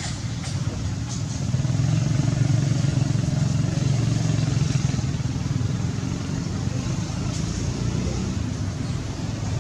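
A motor vehicle's engine running, growing louder about a second and a half in and easing off after about five seconds, with a few light clicks near the start.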